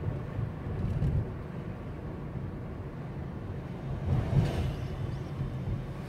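Car driving, heard from inside the cabin: a steady low road and engine rumble, with a brief louder swell about four seconds in.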